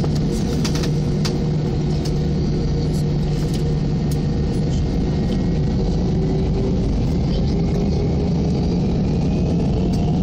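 Airbus A319 jet engines and airframe heard from inside the cabin, a steady low rumble and hum as the aircraft rolls slowly on the runway. About seven seconds in, a whine begins to rise in pitch as the engines spool up for the takeoff roll.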